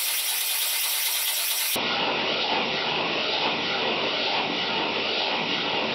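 A small 3D-printed nutating disk compressed-air engine running and spinning a carbon fibre propeller: a steady rushing hiss of air and propeller whir. Nearly two seconds in, the sound abruptly turns fuller and deeper.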